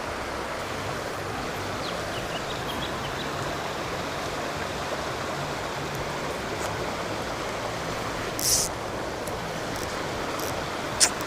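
Mountain stream water running steadily. A brief hiss about eight seconds in and a sharp click near the end.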